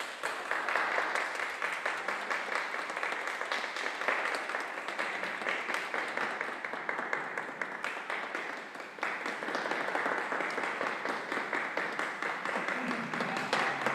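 Audience applauding, many hands clapping. The clapping eases briefly about two-thirds of the way through, then picks up again.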